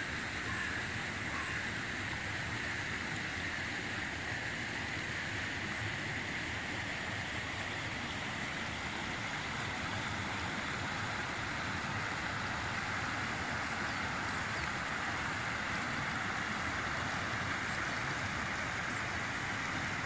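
River water rushing steadily over stones and a low weir.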